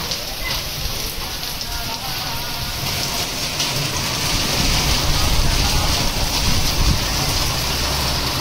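Steady rain falling, getting louder about three seconds in.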